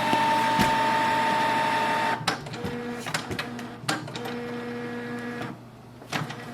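Canon Pixma TR4500-series inkjet printer running its internal mechanism as it recovers from a cleared paper jam (error 1300). A loud steady motor whine lasts about two seconds, then quieter stop-start motor runs follow, with a few sharp clicks.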